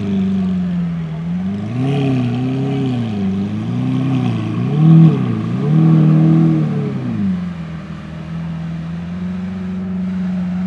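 Lamborghini Aventador Roadster's V12 through a custom aftermarket exhaust, idling and then blipped through several quick revs that rise and fall. The loudest rev comes about five seconds in, and the engine drops back to a steady idle around seven seconds in.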